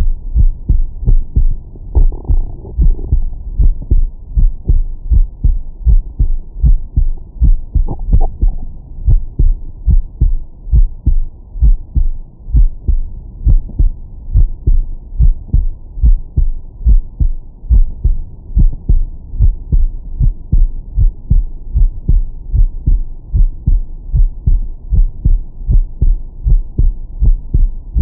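A man's heartbeat heard through a Stemoscope digital stethoscope on the chest, on its 20–1000 Hz filter: a steady, deep, bass-heavy lub-dub of paired beats. A faint brief rustle comes about two seconds in and again about eight seconds in.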